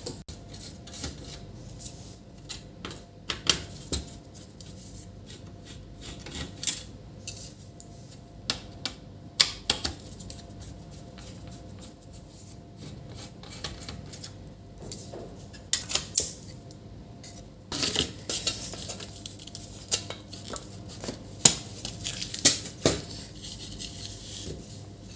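Scattered clicks, clinks and knocks of small tools and a circuit board being handled on a workbench, over a faint steady hum, with a couple of short rustling stretches in the second half.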